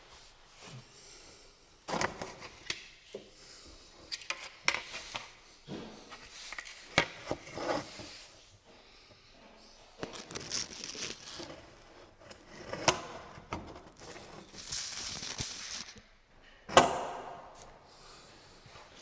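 Handling noise from work on a dishwasher's toe-kick panel: irregular clicks, knocks and stretches of scraping or rustling, with one sharp knock near the end, the loudest.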